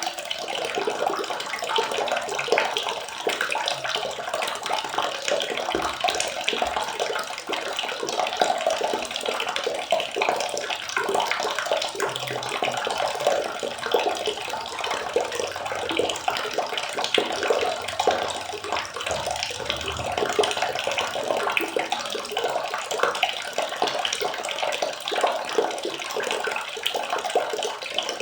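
Water running and splashing steadily, a continuous even gush like a tap filling a tub.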